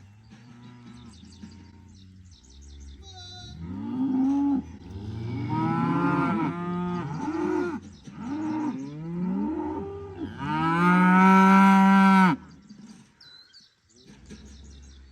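Cattle mooing: a run of short moos rising and falling in pitch, then one long, loud moo near the end.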